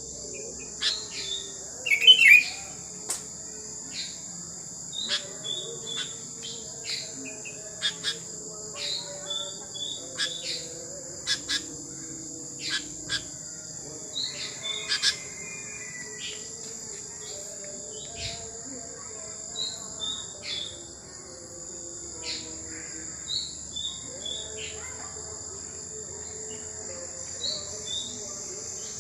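Wild sooty-headed bulbuls calling: short sharp chirps repeated at irregular intervals, with the loudest burst about two seconds in. Behind them runs a steady high-pitched insect drone.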